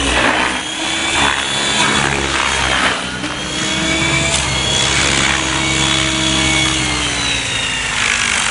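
Radio-controlled helicopter in flight: its motor and rotor hum and whir steadily, the pitch sliding a little as it manoeuvres and easing lower over the last few seconds.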